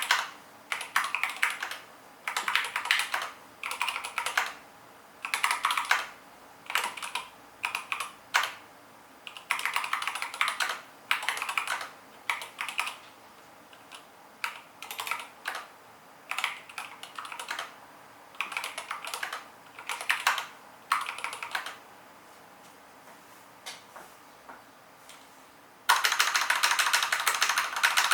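Typing on a KBD75v2 mechanical keyboard with stock, unmodified Tealios v2 linear switches, keystrokes coming in bursts of a second or so. The typing pauses for a few seconds, then a fast, dense run of keystrokes comes near the end.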